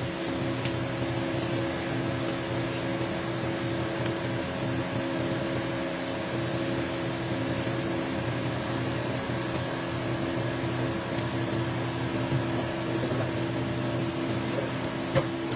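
Steady machine hum with several fixed tones, unchanging throughout, and a single light click near the end.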